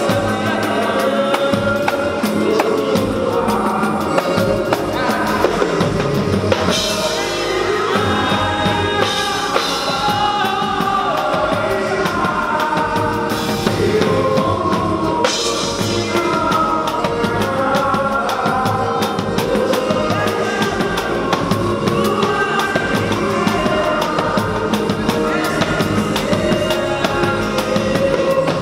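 Live pagode band at full volume: two male singers trading lines of a song over cavaquinho and a drum kit with kick and snare.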